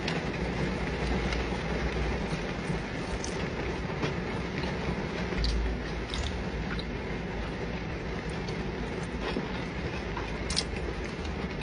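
Steady hiss of heavy rain falling on a car roof, with scattered sharp clicks of close-up chewing as sushi is eaten.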